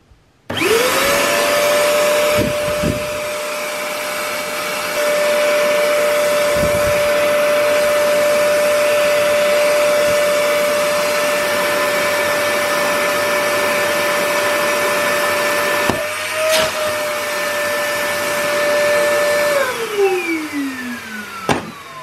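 Flammifera K-408 ash vacuum cleaner's motor switched on, whining up to speed about half a second in, then running steadily. Its pitch lifts briefly about two-thirds of the way through, and near the end it is switched off and winds down with a falling whine.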